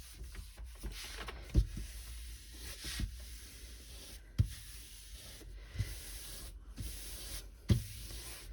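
Rustling and rubbing of a diamond-painting canvas sheet being handled, with three soft knocks spaced a few seconds apart.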